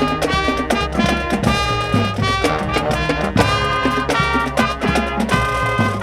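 A high school brass band with drums playing a lively tune: horns hold chords and short phrases over a steady drum beat.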